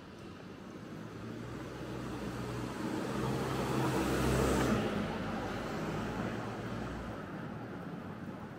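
A motor vehicle driving past on the street: its engine hum and tyre noise grow louder to a peak about four to five seconds in, then fade away.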